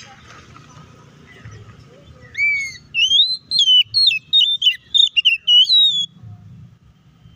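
Male oriental magpie-robin (kacer) singing: a quick run of loud whistled notes that slide up and down, starting about two seconds in and stopping about six seconds in.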